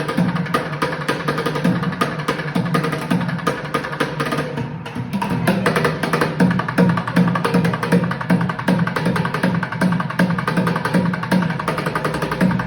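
Music with a steady percussive beat, with a brief break about five seconds in.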